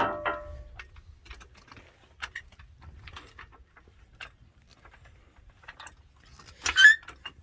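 Floor jack being set up: a sharp metal clank that rings briefly, then scattered light clicks and knocks, and a louder scrape near the end.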